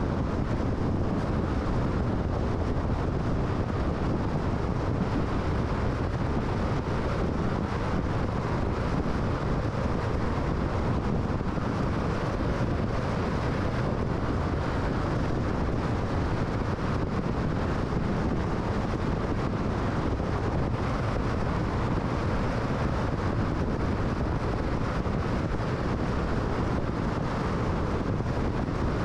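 Steady road noise of a car driving at highway speed: tyre and wind noise, unchanging throughout.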